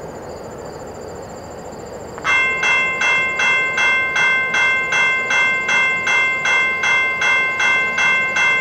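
Railroad crossing warning bell starts ringing suddenly about two seconds in, striking about twice a second: the crossing signals have activated for an approaching train. Before it, only a steady outdoor rumble and a high insect trill.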